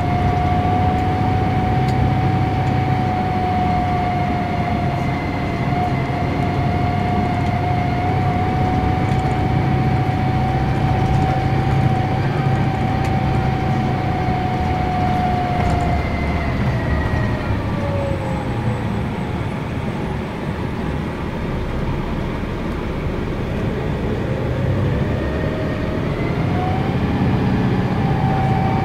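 Cabin sound of a 1992 Neoplan AN340/3 bus on the move, with its Detroit Diesel Series 60 diesel engine running underneath as a steady low rumble. Over it a steady high whine holds, then slides down in pitch a little past halfway and climbs again near the end.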